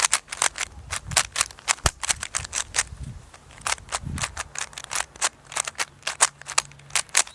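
Plastic speedcube being turned quickly by hand: a fast, irregular run of sharp clacks, several a second, as the layers snap round.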